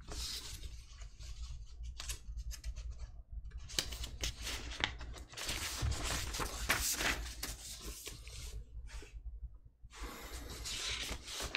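Paper rustling and rubbing in irregular scratchy strokes, with brief lulls about three seconds in and again near nine seconds.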